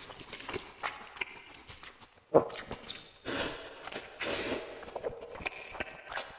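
A person slurping thick noodles in dark sauce and chewing, in several short hissy slurps, with a sharp click about two and a half seconds in.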